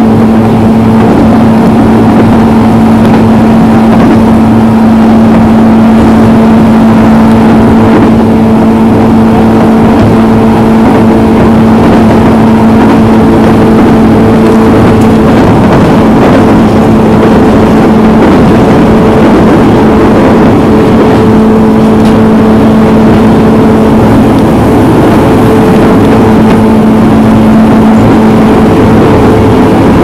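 Running noise of a 103 series electric train heard from inside the car, moving at a steady speed between stations: even rumble of wheels on rail with a steady low hum and a fainter higher tone that hold the same pitch throughout.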